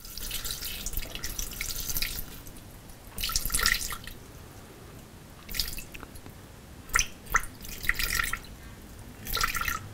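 Water being poured from a jug into a Thermomix's stainless steel mixing bowl, trickling and splashing in several short spurts as the scale counts up to 100 grams, with a couple of light clicks about seven seconds in.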